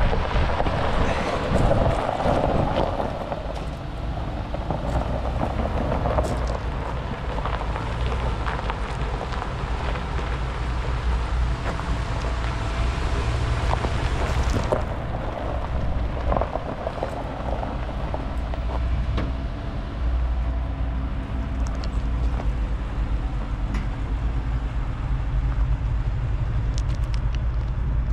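Wind buffeting the microphone over a steady low hum from an idling engine.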